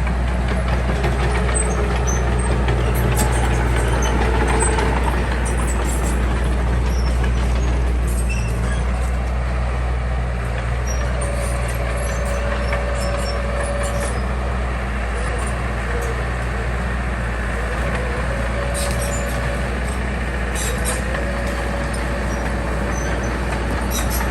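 Heavy diesel engine of earth-moving machinery running steadily under load. A higher whine comes and goes over it, holding steady for a few seconds at a time and wavering in between.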